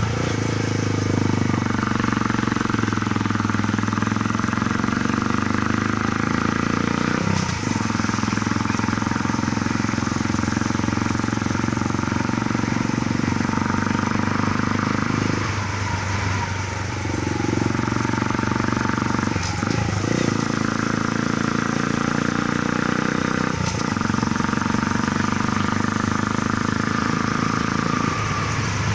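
Honda Grom's single-cylinder four-stroke engine breathing through a slip-on aftermarket muffler on the stock header pipe, pulling under load up a hill. The steady exhaust note breaks off briefly several times.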